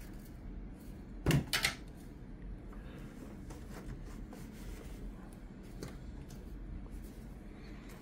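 Handling noise from cleaning inside an open document scanner: two quick knocks a little over a second in, then faint rubbing and small clicks as a microfiber cloth wipes around the feed rollers.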